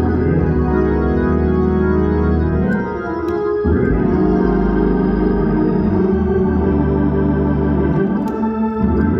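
Organ music: sustained chords held for several seconds each, the harmony shifting a little over a third of the way in and again near the end.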